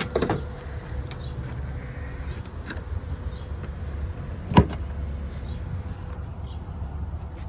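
Tesla Supercharger connector lifted out of its holster on the charging post with a short clatter, then one sharp click about four and a half seconds in as the plug is pushed home into the Tesla Model 3's charge port, over a steady low hum.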